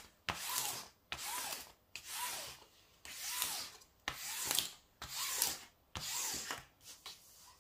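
A folded tissue and hand rubbing across the plastic protective sheet of a diamond-painting canvas, smoothing it flat in about eight sweeping strokes, roughly one a second, each a hiss with a faint rising-and-falling squeak.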